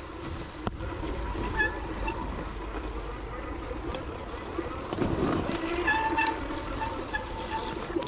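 Motorcycle engine running at low speed while being ridden slowly along a dirt trail.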